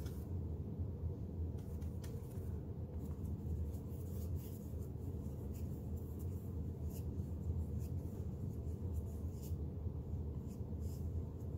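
Paintbrush strokes of acrylic paint on canvas: short, irregular scratchy brushing sounds over a steady low background hum.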